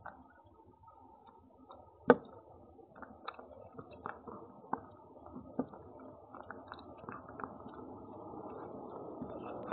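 Cat eating dry kibble: irregular crunching clicks, with one sharper, louder knock about two seconds in.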